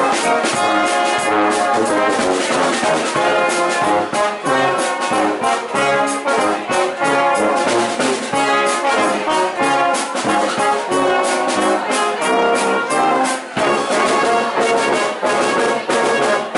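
Oompah brass band playing a tune with a steady beat: tuba, euphonium and trumpets together.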